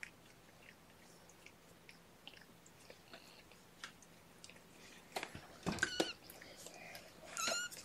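Faint soft clicks and rustling, then a young kitten, about two and a half weeks old, gives two short, high mews near the end.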